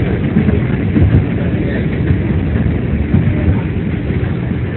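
New York City subway 2 train running between stations on elevated track, heard from inside the car: a loud, steady rumble of wheels and running gear on the rails.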